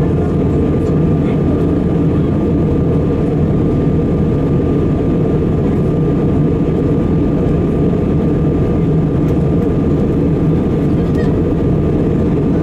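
Steady in-flight cabin noise of an Airbus A320-216 during descent: the deep, even roar of its CFM56 engines and the airflow over the fuselage, with a faint steady whine above it.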